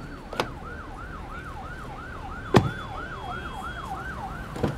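Electronic siren yelping: a quick falling tone that repeats about three times a second. A car door shuts with a loud thud about two and a half seconds in, with lighter knocks near the start and end.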